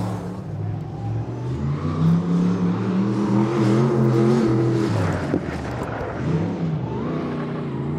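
Sprint car's V8 racing engine revving, its pitch rising and falling several times as the throttle is worked on and off.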